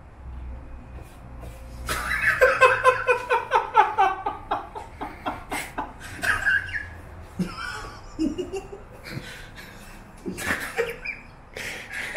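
Men laughing: a hearty run of rhythmic laughter starts about two seconds in and falls in pitch, followed by scattered chuckles and short bursts of laughter.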